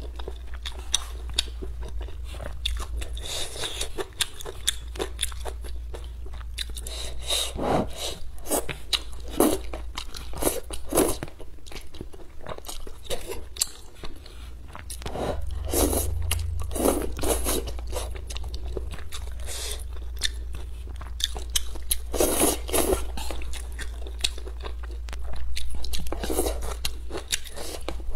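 Close-miked eating of thick, saucy Xinjiang fried rice noodles with celery: continuous wet chewing and crunching clicks, broken several times by louder slurps of noodles.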